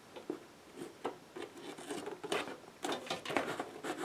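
Fingers picking and scratching at packing tape on a cardboard package backing, with scattered soft scrapes and taps.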